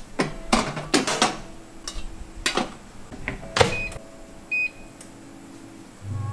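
Metal tongs clicking and knocking against a Onemoon OA9 air fryer oven's tray and door in a string of sharp clacks, then one short electronic beep from the oven's touch control panel. Guitar music comes in near the end.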